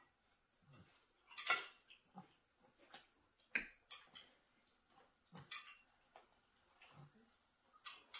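Fork clinking and scraping against a dinner plate, in a handful of short, scattered clicks.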